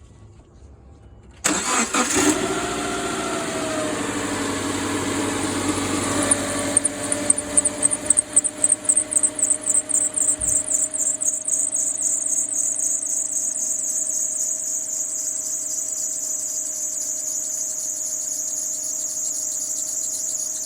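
Car engine starting, then rapid high-pitched chirping from loose accessory belts for several seconds, settling into a steady high squeal as the engine idles. The chirp and squeal come from two loose accessory belts, the power steering belt and the air-conditioning belt.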